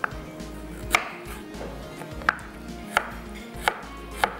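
Chef's knife slicing peeled fresh ginger into julienne on a wooden cutting board. Each stroke gives a sharp knock of the blade on the board, six or seven in all, a little under a second apart.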